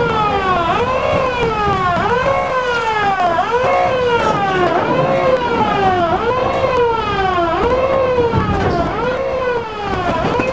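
A wailing, siren-like tone that swoops up and slides back down about once a second, over a steady rumble from the moving train.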